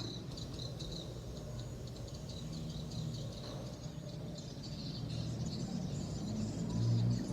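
Close-up eating sounds: chewing with many small, irregular wet mouth clicks as a mouthful of baked brownie is eaten.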